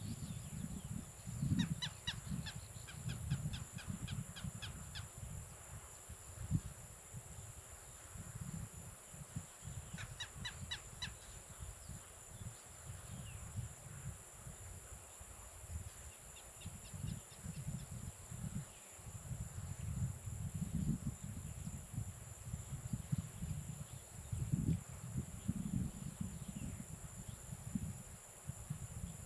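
Wind buffeting the microphone in uneven gusts, under a steady high insect drone. A bird calls in quick runs of short, evenly spaced notes, about three a second, three times: a long run a couple of seconds in, a shorter one about ten seconds in, and a faint one near the middle.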